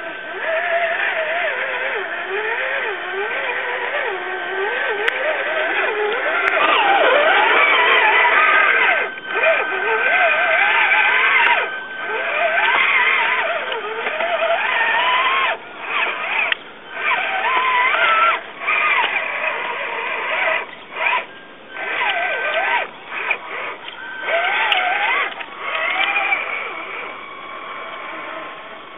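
RC4WD Trail Finder 2 scale crawler's electric motor and geared drivetrain whining, the pitch rising and falling with the throttle and cutting out again and again as the throttle is let off.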